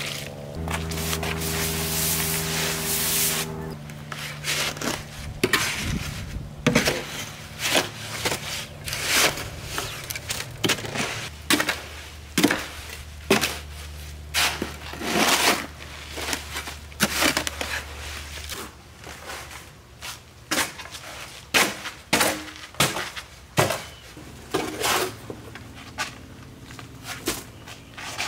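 A rush of dry concrete mix pouring out of a bag at the start. Then repeated irregular scraping and knocking strokes, about one a second, as the concrete is mixed and worked by hand, thinning out near the end.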